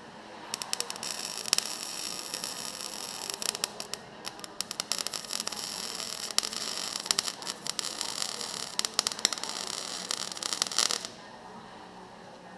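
Electric welding arc crackling and sizzling with irregular sharp pops as a patch is welded into rusted steel bodywork. It runs for about ten seconds and then stops abruptly near the end.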